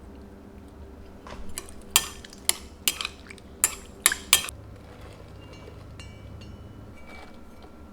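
Kitchen utensils clinking against dishes: a quick run of about seven sharp clinks over a few seconds, followed by faint ringing.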